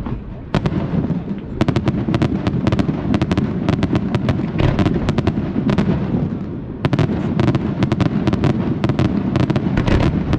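Fireworks display: a dense, continuous barrage of sharp cracks and bangs over a constant low rumble of booming shells, with a short dip about six seconds in.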